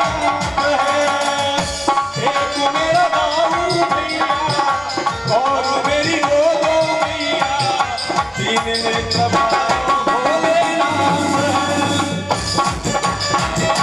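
Gurjar rasiya folk music played live: a wavering, pitch-bending melodic lead over a quick, busy hand-drum rhythm.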